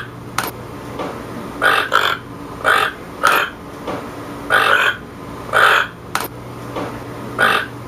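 A toucan calling: a series of about seven short croaking calls, roughly one a second, with two sharp clicks among them.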